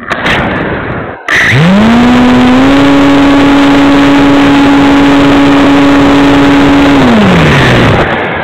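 Radian motor glider's electric motor and propeller spooling up about a second and a half in, then running at a steady high pitch under power, very loud on a camera taped to the airframe with heavy rushing noise. Near the end the motor is throttled back and the pitch winds down.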